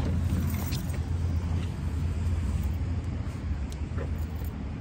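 Steady low rumble of a car engine idling, with a few faint clicks.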